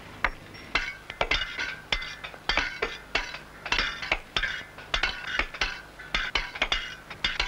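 Stonemasons' steel hand hammers and picks striking sandstone. Sharp, clinking blows come in quick, irregular, overlapping succession, about three or four a second, as from more than one mason hewing at once.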